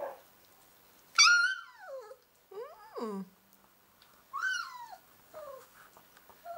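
Northern Inuit puppy giving a run of whining, howl-like cries, each sliding down in pitch; the loudest and highest comes about a second in, with smaller ones near the middle and end.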